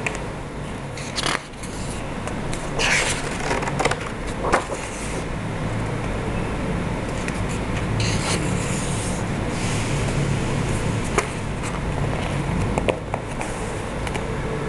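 Pages of a paperback colouring book being turned and a hand sliding over the paper: several short rustles and scrapes, the longest about 8 seconds in, over a steady low rumble.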